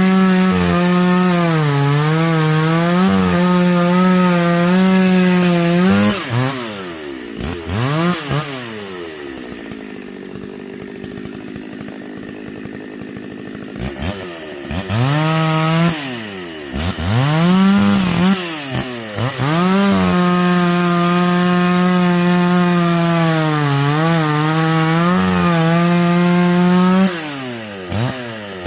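Two-stroke Stihl chainsaw cutting firewood logs at full throttle, its pitch sagging slightly under load. About six seconds in it drops to idle, is revved up and down several times, then cuts again at full throttle before dropping back off near the end.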